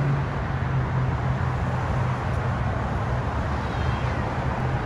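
Steady highway traffic noise: tyres and engines of passing vehicles making a continuous rushing sound with a low hum underneath.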